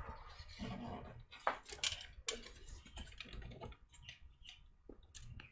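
Scattered light clicks and taps of parts and screws being handled inside a small desktop PC case, a few sharper clicks about one and a half to two and a half seconds in.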